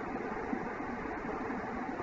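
Steady background hiss with a faint, even hum: room tone picked up by the microphone.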